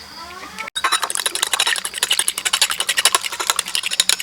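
Eggs being beaten in a bowl, a utensil clicking rapidly and evenly against the bowl; the beating starts about three-quarters of a second in.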